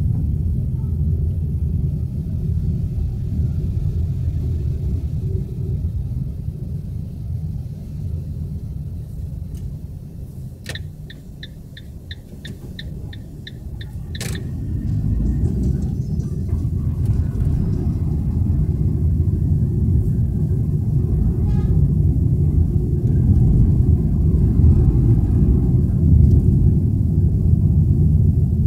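Steady low rumble of road traffic. A little after ten seconds in, a sharp click is followed by a quick run of about ten short, high beeps and a second click.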